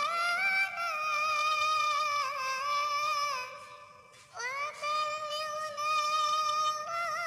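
Cat meows digitally tuned into a high, wavering singing voice carrying a sholawat melody. The voice fades away about midway, then comes back in with an upward swoop and holds long notes.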